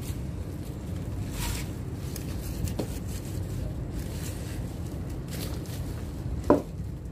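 Soil rustling and crumbling as bok choy plants are pulled by hand from potting soil in a plastic tray and shaken off, over a steady low rumble. A short sharp sound stands out about six and a half seconds in.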